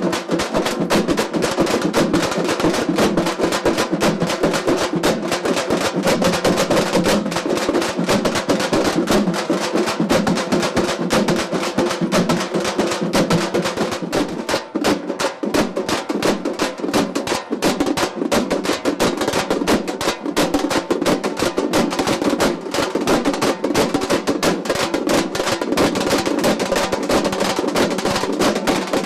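A group of large stick-beaten drums playing together in a dense, continuous rhythm of rapid strokes.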